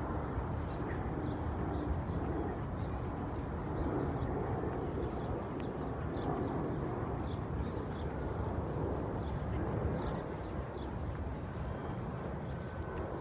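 Steady low outdoor rumble, with faint, short high bird chirps scattered throughout.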